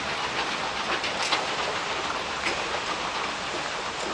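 Airport moving walkway running, a steady rattling hum with a couple of light clicks.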